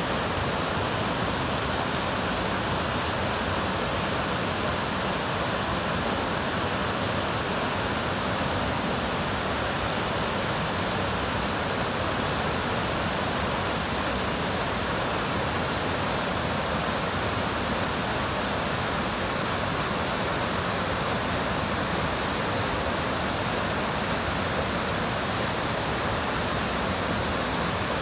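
Whitewater of the South Fork Snoqualmie River rushing over boulders in a close, steady, unbroken wash of water noise. The river is running high and in flood after heavy rain has melted fresh snow.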